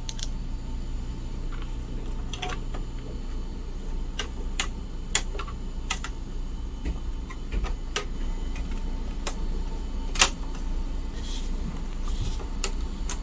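Plastic parts of an iMac G3's case being handled and pressed into place: about a dozen irregular sharp clicks and taps, the loudest about ten seconds in, over a steady low hum.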